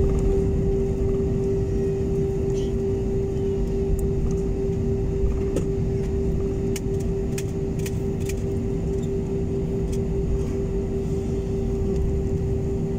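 Jet airliner cabin noise while taxiing: steady engine and air-conditioning rush with a constant low hum.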